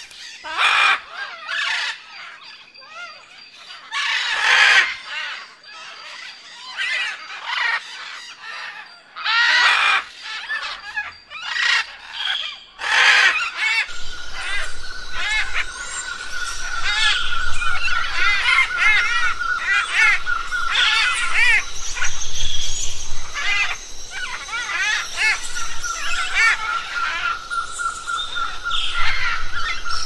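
Jungle soundscape of many birds calling: loud harsh squawks through the first half, then chirps and repeated short calls over a fast steady trill. A low rumble comes in under the calls about halfway through.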